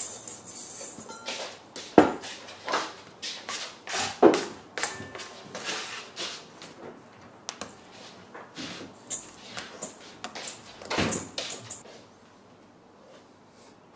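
Kitchen handling sounds: a stainless steel mixing bowl set down and moved about on a wooden cutting board, a plastic bench scraper working under a ball of bread dough, and the dough pressed into the bowl by hand. It is an irregular string of knocks and scrapes, the loudest about two seconds in and again near eleven seconds.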